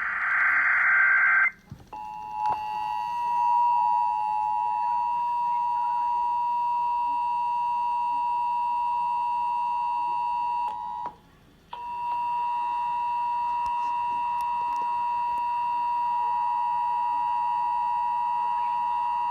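Emergency Alert System test signal relayed on broadcast audio: a buzzy digital header burst ends about a second and a half in. It is followed by the steady two-tone EAS attention signal for about nine seconds. The tone breaks off briefly, then starts again for about another nine seconds.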